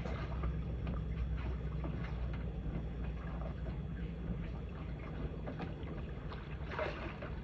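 Leopard 40 sailing catamaran underway: a steady low rumble with water splashing and lapping against the hull, the splashes a little stronger near the end.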